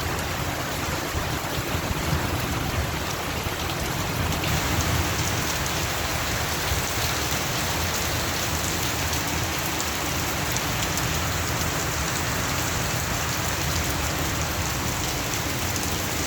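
Rain falling steadily, an even hiss of many drops striking surfaces. About four and a half seconds in it turns brighter and a little louder, then holds steady.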